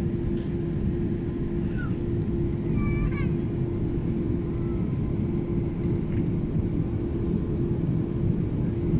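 Steady low rumble of an Airbus A380-800's cabin with the engines running as the airliner moves on the ground, with a steady hum over it.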